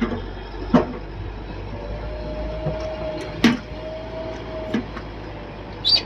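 Backhoe loader working: a steady low engine hum with five sharp knocks spaced through it, and a faint whine held for about three seconds in the middle.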